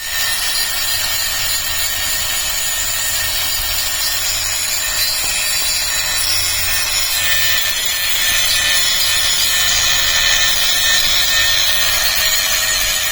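A handheld power tool polishing down a welded joint on metal, running steadily with a continuous hiss of abrasive on metal. It gets a little louder about eight seconds in.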